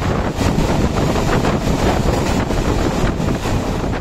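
Moving passenger train heard from inside a coach: wind buffeting the microphone over a steady rumble of wheels on the rails, with a few short knocks scattered through.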